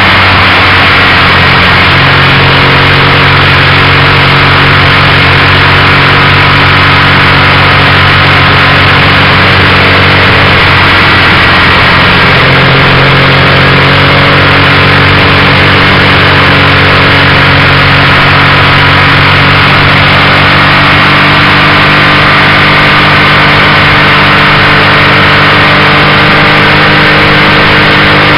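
Motorcycle engine running at a steady cruising speed, its note holding nearly constant, under loud wind and road noise on the on-board microphone.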